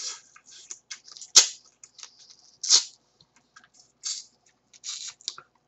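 Biting and sucking the meat out of a bundle of cooked swimming-crab legs: irregular short crackles and slurps, with one sharp shell crack about a second and a half in and a louder slurp near three seconds.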